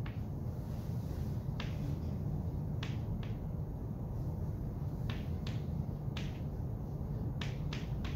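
Chalk tapping and striking against a blackboard as a structure is drawn: about ten sharp clicks at irregular intervals, over a steady low room hum.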